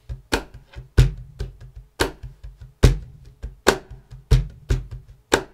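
Cajon played by hand in a steady groove: deep bass strokes roughly once a second, with lighter, sharper snare strokes in between. The cajon has an internal crossbar separating its bass and snare sections, so the bass strokes carry little snare buzz.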